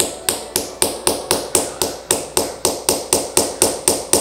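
Hammer striking the head of a hand-held rivet-kit hole punch, driving it through denim to make a rivet hole: a steady run of quick sharp taps, about four a second.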